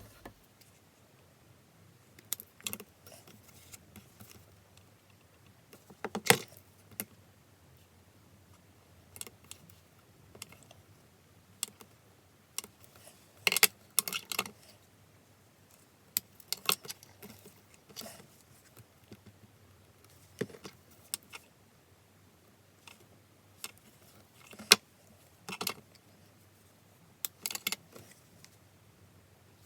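Intermittent small clicks, taps and rustles of hands working with small pieces of card: trimming, handling and pressing paper parts into place.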